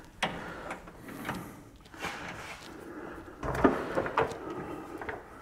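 Steel hand tools clanking and clinking: half a dozen separate sharp metal knocks, some with a short ringing after them.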